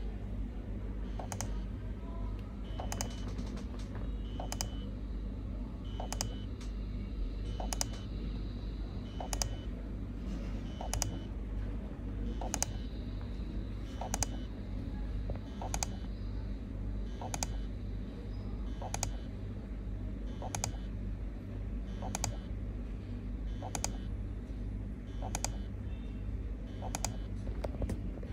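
Automatic key presser tapping a button with its rod-mounted plunger: one sharp click about every one and a half seconds, with a few clicks coming in quick pairs near the end. A steady low hum runs underneath.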